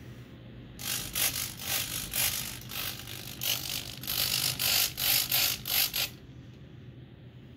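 Small RC hobby servos whirring in a rapid run of short bursts, moving a model plane's control surfaces back and forth. They stop about six seconds in.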